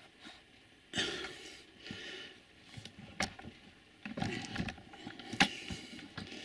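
Handling noise of small plastic model railway track pieces being moved and fitted together on a board: a brushing scrape about a second in, a sharp click near the middle, then more rustling and light clicks near the end.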